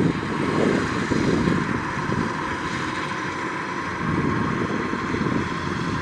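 Kubota DC-105X combine harvester's diesel engine running under load as it cuts and threshes rice: a steady drone with a thin, constant whine above it. Wind buffets the microphone in gusts.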